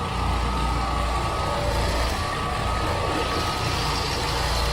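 A machine running steadily: a constant low rumble and hiss with a thin, steady whine above.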